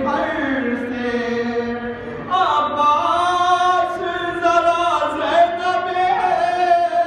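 A man's voice chanting a noha, the Shia lament for Imam Ali, in long drawn-out held lines.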